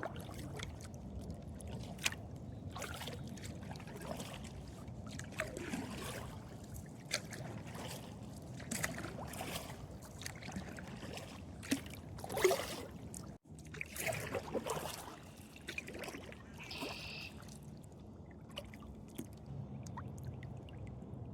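Kayak paddle strokes: the blades dipping and splashing, with water trickling off them, at an irregular pace.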